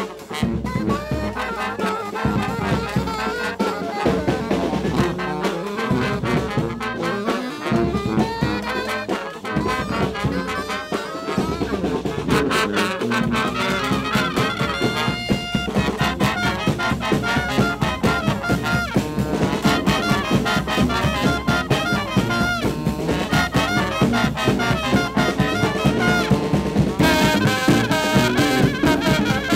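Brass band playing with trumpets, trombones and saxophones over a steady, driving beat.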